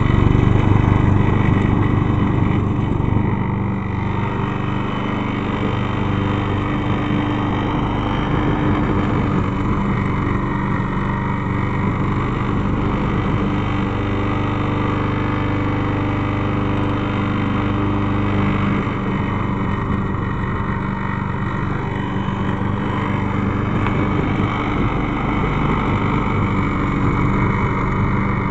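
Vintage Craftsman lawn mower's small engine running steadily, a little louder for the first few seconds and then settling to an even, unchanging speed.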